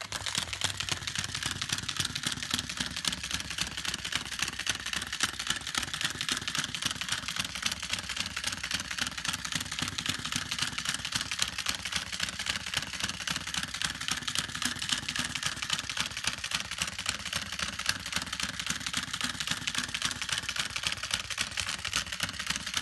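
Battery-powered Chubby Puppies Dalmatian toy walking on its own: its small electric motor and plastic gears whir steadily with a rapid plastic clicking.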